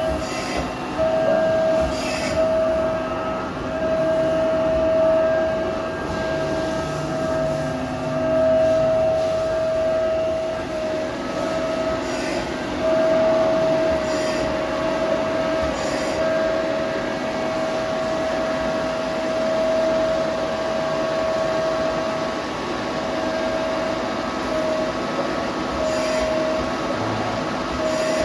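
Mori Seiki SL-403C CNC turning center running under power: a steady mechanical hum with a continuous high whine, broken by a few brief sharp clicks.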